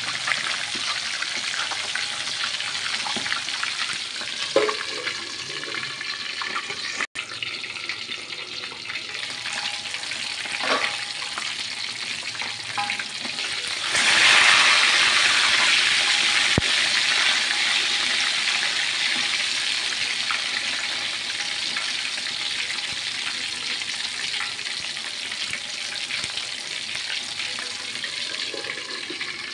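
Chicken drumsticks deep-frying in hot oil in an aluminium wok: a steady crackling sizzle. About halfway through the sizzle surges louder as the pieces are turned with a metal spatula, then slowly dies back down.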